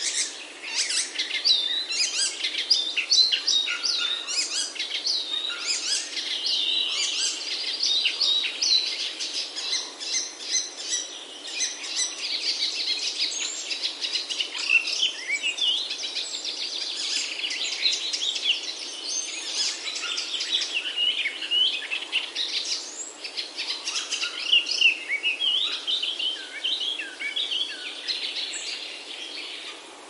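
Small birds chirping and twittering, many quick high notes sweeping up and down and overlapping in a busy chorus.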